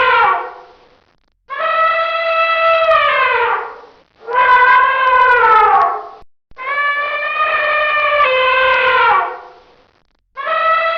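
Elephant trumpeting: a string of loud, brassy calls about two seconds each with short gaps between them. Each call holds a steady pitch, then slides down as it fades.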